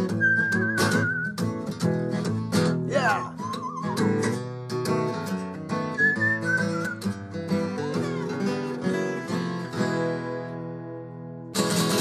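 Acoustic guitar strummed in a blues, with a parrot whistling along in short, warbling notes: one near the start, a rising glide about three seconds in, and another about six seconds in. The guitar dies away briefly before a loud strum near the end.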